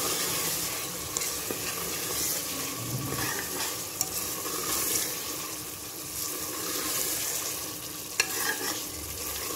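Thick minced-meat and liver masala sizzling in an aluminium pressure cooker while a metal spoon stirs it, scraping through the mixture with a few sharp taps against the pot.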